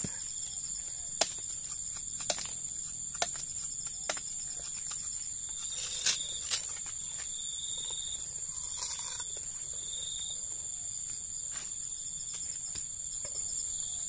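Steady high-pitched drone of insects, with a few sharp cracks: one about every second over the first four seconds, then two close together about six seconds in.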